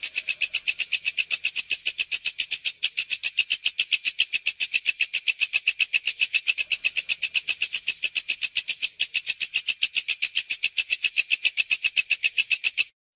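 Walang kecek bush cricket (katydid) singing: a loud, steady, rapid ticking at about seven pulses a second, high-pitched and shrill, that cuts off shortly before the end.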